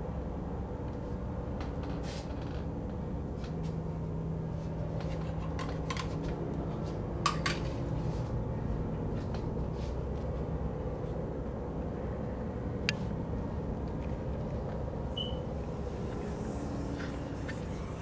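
Low steady rumble of room noise with a few sharp clicks and knocks scattered through it, the loudest about seven seconds in and another near thirteen seconds.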